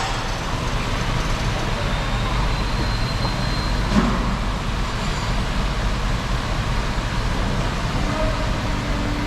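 Steady low mechanical hum, with a single knock about four seconds in and a steady tone starting near the end.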